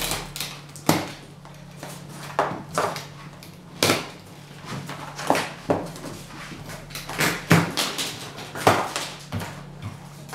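Plastic strapping bands on a cardboard box being cut and pulled free, with the box handled: an irregular series of sharp clacks, snaps and rustles.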